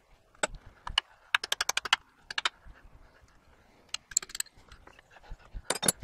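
Hammer striking the steel of an old plow frame, trying to drive out rusted-in 5/8-inch bolts: a scatter of sharp metallic clinks, with a quick run of light taps about a second and a half in and more near the end.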